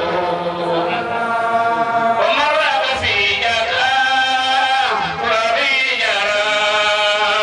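A man chanting Islamic religious verses into a microphone, in long held notes that slide and waver from one pitch to the next, heard through loudspeakers.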